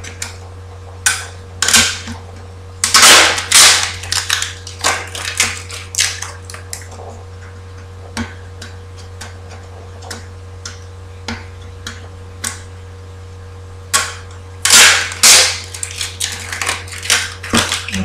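A paper label being picked and torn off a soft plastic bottle: irregular scratchy rips and crackles in two bursts, a few seconds apart, over a steady low mains hum.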